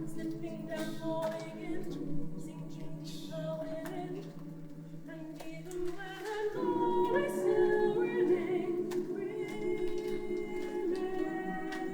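A choir singing unaccompanied, several voices holding layered notes without clear words. The chord changes and swells fuller and louder about six and a half seconds in.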